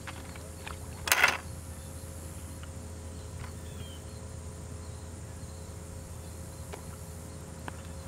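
Steady insect chirring over a low hum, with one brief, loud rustle about a second in.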